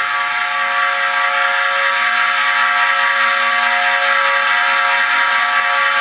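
A sustained chord of several steady, held tones that swells and then holds level.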